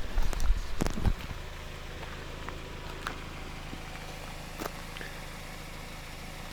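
Low thumps for about the first second, then a steady low hum with a few faint clicks.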